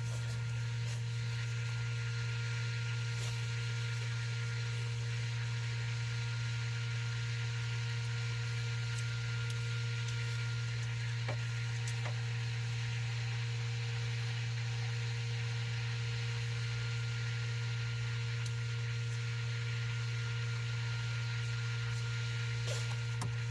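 A steady low electrical hum with an even hiss behind it, broken only by a few faint, soft clicks.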